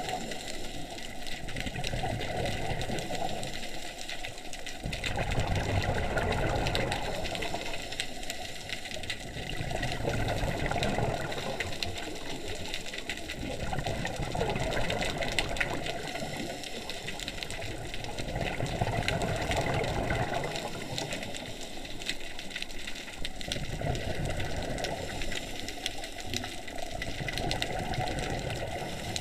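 Scuba diver breathing underwater through a regulator: exhaled bubble bursts swelling and fading in a slow cycle about every five seconds, with quieter breath hiss between them.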